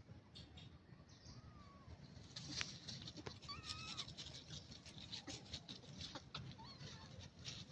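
Faint animal calls: many short high chirps and clicks with a few brief gliding squeaks, growing busier about two seconds in.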